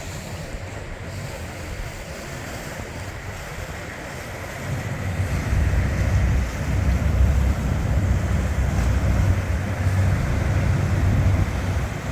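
Wind buffeting the microphone over a steady outdoor rush of noise, the low rumble growing stronger about five seconds in.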